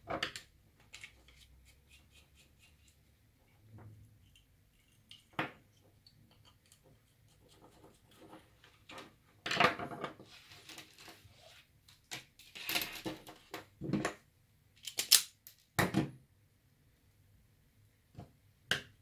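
Hands handling thin electrical wires, small plastic parts and hand tools on a wooden tabletop: scattered clicks, taps and rustles, with several louder clusters of sharp snipping clicks after about halfway.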